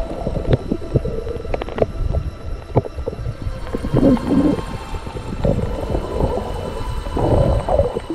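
Underwater sound picked up by a camera on a reef dive: scattered sharp clicks and crackles, with gurgling bubble bursts about four seconds in and again near the end.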